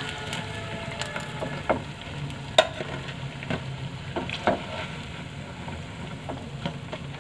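Batter-coated idli pieces deep-frying in hot oil in a kadai, a steady sizzle. A metal skimmer clinks against the pan now and then as the golden-fried pieces are scooped out.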